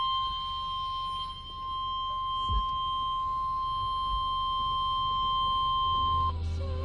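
NOAA Weather Radio's 1050 Hz warning alarm tone: a single steady electronic tone held for about six seconds, cutting off shortly before the end. It is the attention signal that announces an alert message, here a Tornado Watch.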